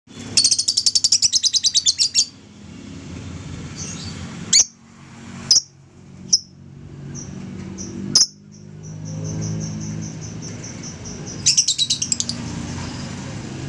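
Lovebird calling: a fast run of shrill chirps, then single sharp shrieks a second or so apart, a softer even string of chirps, and another fast chattering burst near the end. Low steady rumble underneath.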